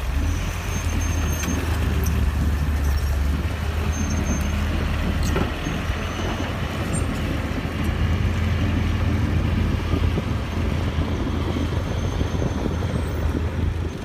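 Loaded dump truck's diesel engine running steadily under heavy load, a deep drone, as the truck strains to drive its sunken rear wheels out of soft ground.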